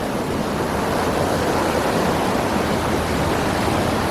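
Steady rushing of a fast-flowing forest stream, an even wash of water noise without breaks.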